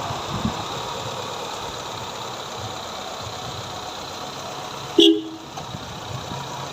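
Mitsubishi 4G92 inline-four engine idling steadily after an overhaul. About five seconds in there is one short, loud toot.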